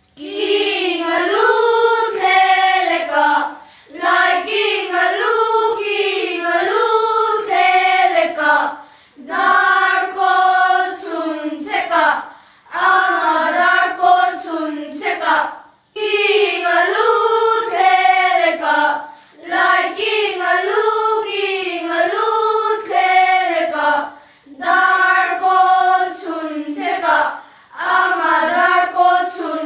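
A group of children singing a Mizo children's game song together in unison, in short phrases of a few seconds with brief pauses for breath between them.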